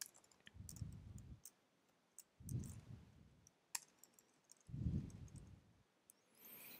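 Faint typing on a computer keyboard: scattered single key clicks, one of them sharper near the middle, with a few soft low rumbles in between.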